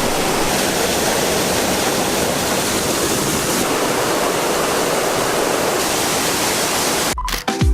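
Waterfall rushing, a steady even roar. About seven seconds in it cuts off suddenly and music with a deep thumping beat begins.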